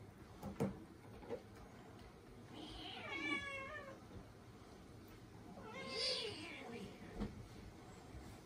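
Young kitten meowing twice, each call about a second long and wavering in pitch, a couple of seconds apart. A few short knocks come before and after the calls.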